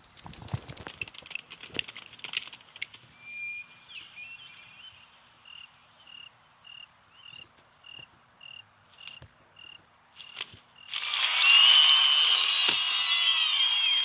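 Film sound effects: scattered rustles and clicks, then a short high chirp repeated about twice a second over a quiet background. About eleven seconds in, a large crowd of cartoon bugs suddenly breaks into loud cheering.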